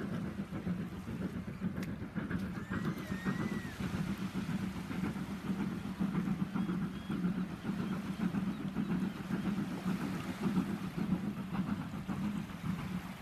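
Sea ambience: a steady low rumble with a noisy wash over it. A brief thin whistle rises and falls about three seconds in.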